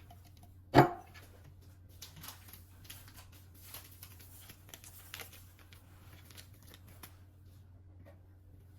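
A single sharp knock about a second in, then several seconds of light rustling and crinkling handling sounds, with a steady low hum underneath.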